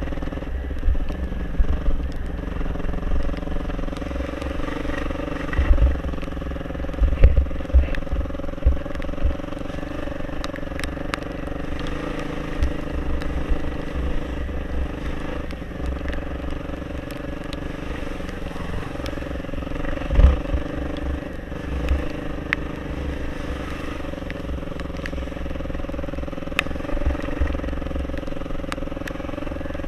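Dirt bike engine running steadily while riding an off-road trail, with a low rumble and a few sharp knocks from the bike over rough ground, the loudest about 7 and 20 seconds in.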